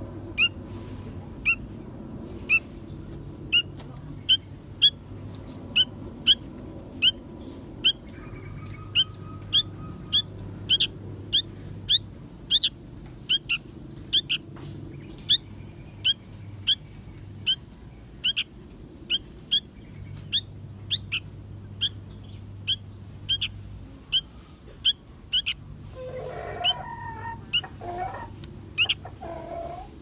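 A sooty-headed bulbul chick calling: a short, sharp, high chirp repeated over and over, about one to two a second. A lower, wavering sound joins for a few seconds near the end.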